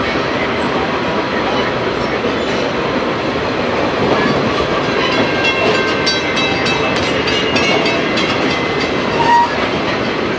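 Passenger railroad car running at speed, heard from its vestibule: a steady rumble of wheels on rail with wind noise. From about five seconds in, a grade-crossing warning bell dings about four times a second as the train passes it, its pitch sliding slightly lower as it goes by.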